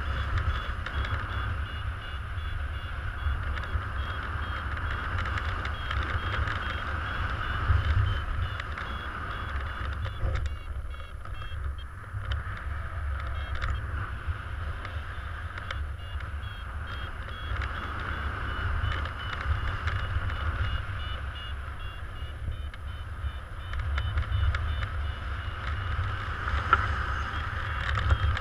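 Steady rush of in-flight airflow over the camera microphone, with a paragliding variometer beeping in short, evenly repeated high tones, the vario's climb signal for rising air. The beeping pauses briefly about ten seconds in, then resumes.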